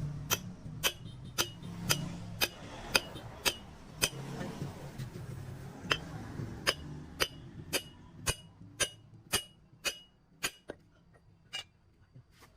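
Hammer blows on a steel truck wheel rim, about two a second, each with a short metallic ring, as the old rim is worked loose. There is a brief pause around the middle, and the blows grow softer near the end.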